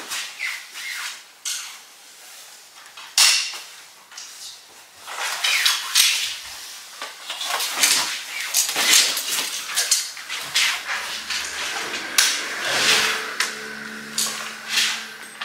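Swords being handled: blades sliding in and out of their scabbards, with many sharp clicks and clinks of the metal fittings and swishes of cloth. A faint low hum comes in during the second half.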